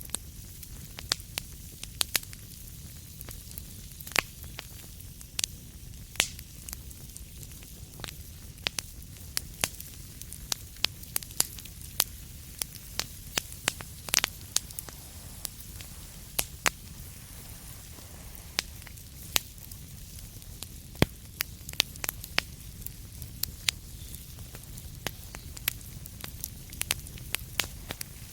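Wood fire crackling in a fireplace: irregular sharp pops and snaps, a few a second with some louder ones, over a low steady rumble.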